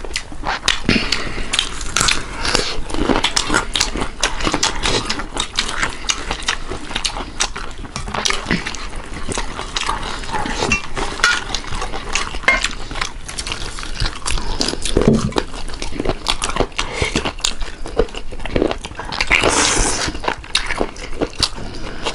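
Close-miked eating sounds of two people eating rice and meat curry by hand: wet chewing and lip-smacking in a dense run of clicks, with fingers and food scraping against stainless steel plates.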